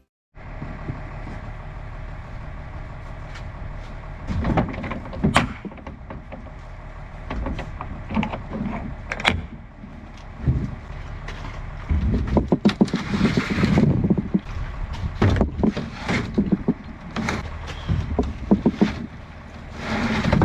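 An engine running steadily, with irregular clunks and clatters of metal and machinery over it, thickest in the second half.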